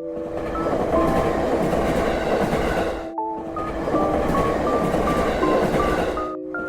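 Train running with a steady rumble and rail clatter, layered with a simple melody of held notes. The whole sound cuts out for a moment about three seconds in, then resumes.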